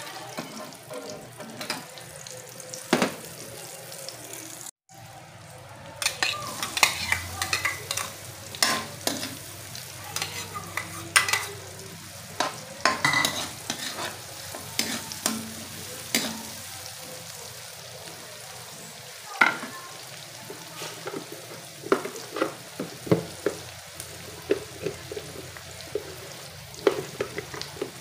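Butter, then chopped red onion, sizzling in an aluminium wok while a metal spoon stirs and scrapes it, with frequent sharp clinks of the spoon against the pan over a steady frying hiss.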